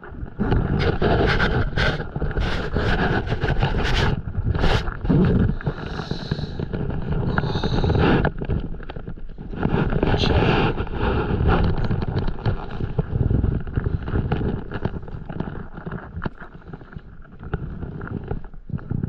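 Close handling noise from a stand-up paddleboard: many knocks, clicks and scrapes of hands on the camera and gear over a constant low rumble, busiest in the first half and lighter toward the end.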